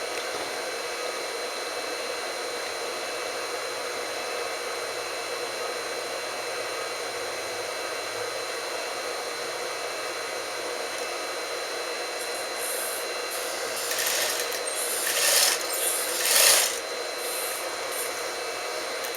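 A steady whirring hiss, with cloth being handled and rustled in three louder bursts about fourteen to seventeen seconds in.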